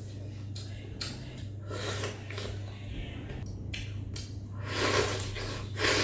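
Close-up eating sounds: a bowl of bún mắm noodle soup being slurped and chewed in short bursts, louder near the end, over a steady low hum.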